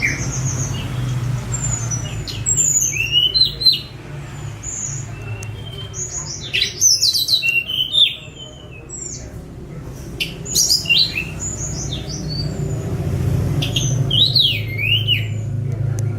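Tledekan gunung songbird singing short phrases of quick, high whistled sweeps and trills, with pauses between phrases, over a steady low hum.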